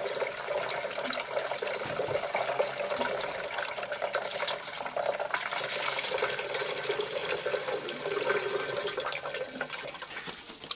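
Water running steadily through a 90% gas furnace's condensate trap and drain hoses, tested for leaks; the flow eases off near the end.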